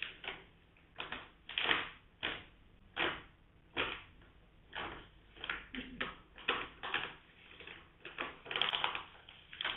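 Miniature schnauzer chewing and crunching on a treat held in the owner's hand: a run of irregular crunches, one to three a second, coming faster toward the end.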